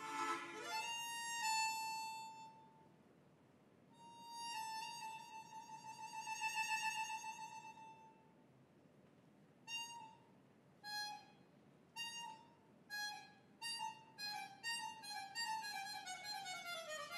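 Harmonica playing an unaccompanied melody, one note at a time: a long note with a wavering vibrato in the middle, then a string of short separate notes and a falling run near the end.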